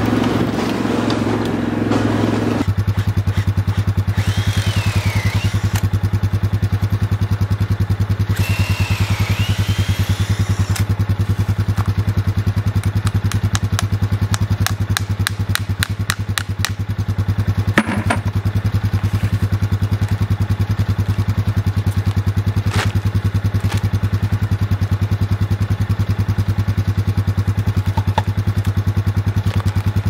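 ATV engine running, moving along for the first couple of seconds, then running steadily with a low, even pulse. Two short high whistles, a run of light clicks and a single sharp knock about eighteen seconds in are heard over it.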